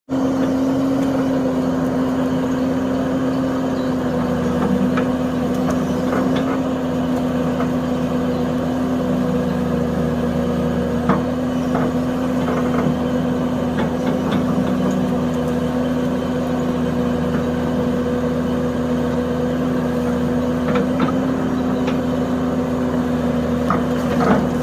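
Heavy construction machine's engine running steadily, with a few brief knocks from the work now and then.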